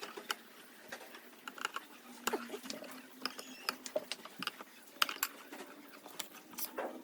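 Irregular light clicks and knocks of a coffee maker's parts, covers and screws being handled and fitted back together during reassembly.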